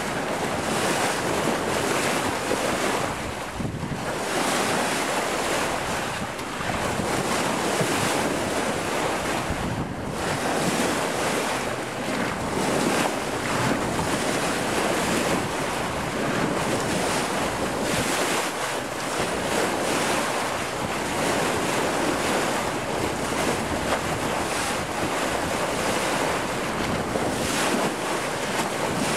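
Sea water rushing and splashing along the bow of a sailing boat under way, with wind on the microphone; the rush swells and eases every few seconds.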